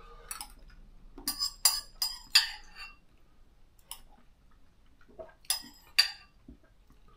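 A metal spoon clinks against a ceramic bowl while food is spooned out of it: a quick run of clinks about a second in, then a few more spread out near the end.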